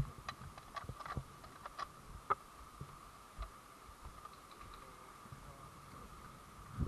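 Scattered, irregular light clicks and taps from an airsoft gun and its hopper being handled and switched on, over a faint steady high whine.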